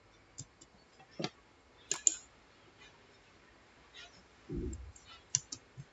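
Scattered single clicks of a computer mouse and keyboard, sharpest about two seconds in, with one dull low thump about four and a half seconds in.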